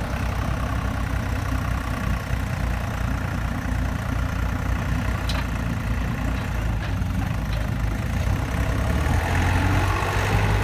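Diesel engine of farm machinery running steadily at a low, even note, with a couple of faint clicks about five and seven seconds in.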